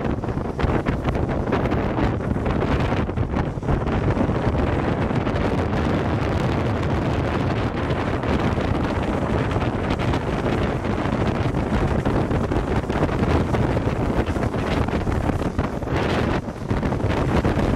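Wind buffeting the microphone of a camera on a follow car at speed, over the steady low rumble of the car running down the road.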